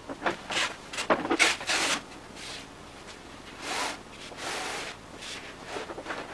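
Handling noise from parts of a Genie Canvas kit being unpacked or fitted together: a run of short rubbing and scraping strokes, a few clicks, and a longer rub about four seconds in.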